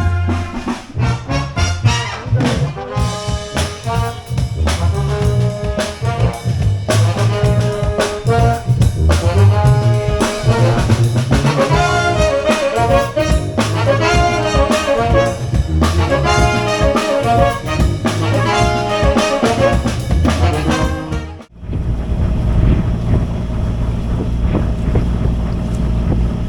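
Brass music, trumpets and trombones over a quick percussive beat. About 21 seconds in it cuts off abruptly, giving way to a steady low rumble with wind noise on the microphone.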